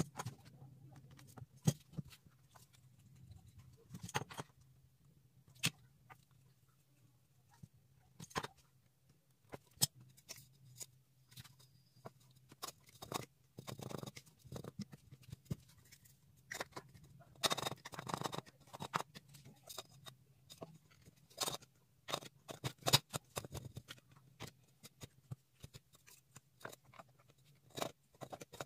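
Handling noise of PVC pipe fittings and aluminium cans being fitted onto an MDF board: scattered light taps, clicks and scrapes, busier from about the middle on, over a faint steady low hum.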